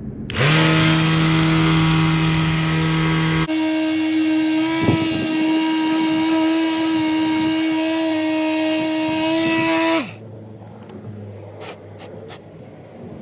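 Electric sander running on car body filler for about ten seconds, a steady whine that changes tone about three seconds in and stops suddenly. A few faint ticks follow.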